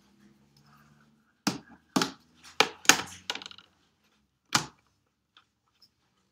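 Sharp clacks of hard makeup cases being handled: a quick run of about five knocks and clicks starting about a second and a half in, then one more a little later.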